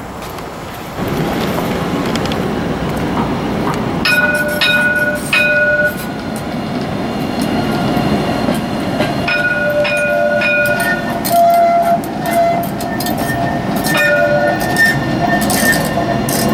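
Alstom Citadis tram rolling past on a curve: a steady rumble of wheels and running gear that grows louder about a second in. From about four seconds in come repeated short, high-pitched wheel squeals on the curved track.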